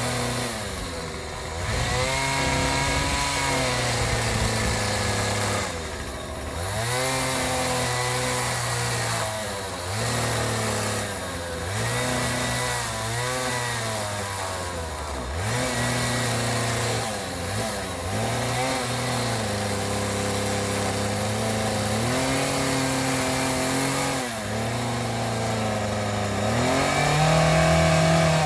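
A small engine running and repeatedly revving up and easing off, its pitch rising and falling every two seconds or so.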